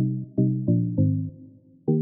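Background music made of short, sharply struck pitched notes in a repeating rhythm.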